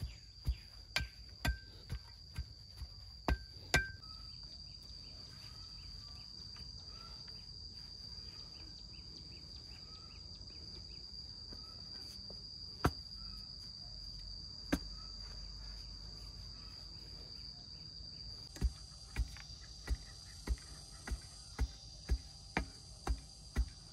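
A steel digging bar jabbed into hard earth beside bamboo posts, thudding about twice a second for the first four seconds. After a pause broken by two lone thuds, the same rhythm resumes for the last five seconds. Insects drone steadily at a high pitch throughout.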